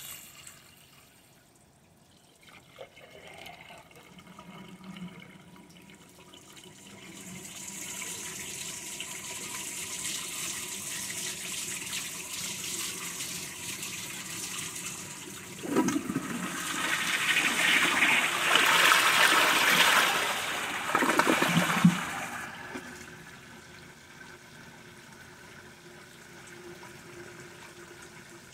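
A Kohler Gleam 1.28-gallon-per-flush low-flow toilet flushing. A water hiss builds, then the flush rushes and swirls down the bowl for about six seconds and cuts off sharply, leaving a quieter steady hiss of running water.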